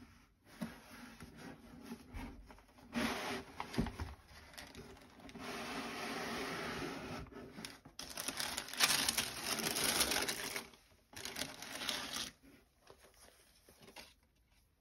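Cardboard shoebox being handled and opened, then crumpled tissue paper crinkling and rustling as gloved hands unwrap the shoes, in several bursts with a few knocks early on the box; the rustling is loudest a little past halfway and fades to light handling near the end.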